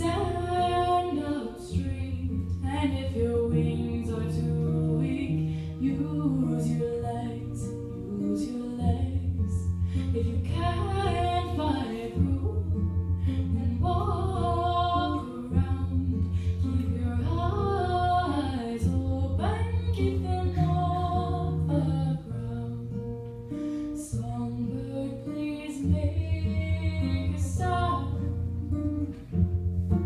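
A song performed live on acoustic guitar with singing, the guitar holding low sustained notes that change every second or two under the sung melody.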